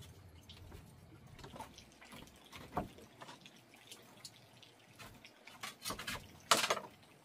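Water dripping and splashing in irregular small clicks and splashes, the loudest splash about six and a half seconds in.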